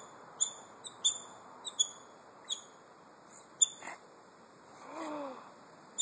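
North American river otters chirping as they play: about seven short, sharp, high-pitched squeaky chirps in the first three seconds, with a single sharp click a little past halfway.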